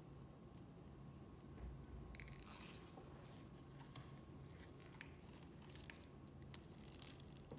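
Faint scraping and a few sharp small clicks of hand tools working on an iPhone 7 Plus being taken apart, over a faint steady hum.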